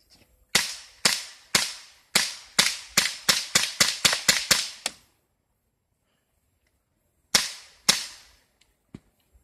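Colt Defender CO2 BB pistol fired semi-automatically: about thirteen sharp pops in quick succession, speeding up to about four a second, then a pause of a couple of seconds and two more shots.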